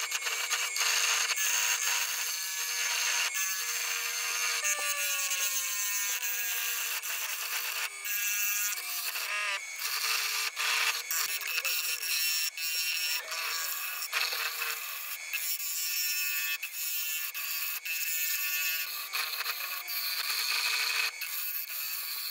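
Carbide turning tool scraping across the face of a spinning disc of very hard Scottish elm on a wood lathe, a steady shrill hiss of cutting. A few faint whistling tones slide down in pitch now and then.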